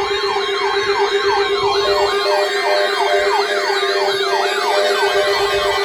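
Siren-style emergency alert tone: a pitch sweeping quickly up and down about twice a second over a steady lower tone, sounding as the tornado watch alert begins.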